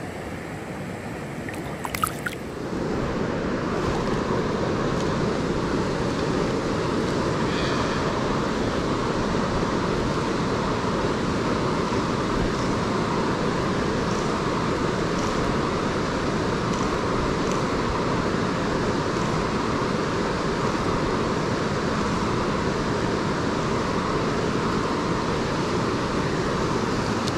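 River water rushing steadily around a wading angler. After a couple of sharp clicks about two seconds in, it gets louder and holds even.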